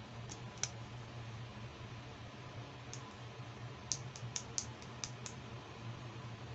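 Light, sharp clicks of a small pink plastic doll comb being handled between fingers: two near the start, one about three seconds in, then a quick run of about six about four seconds in.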